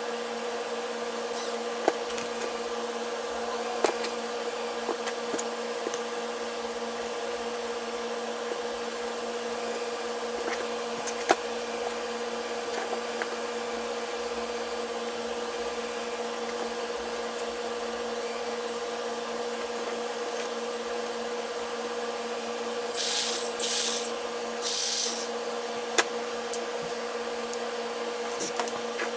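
A small electric motor hums steadily at a constant pitch. A few sharp clicks fall in along the way, and two short, loud hissing bursts come near the end.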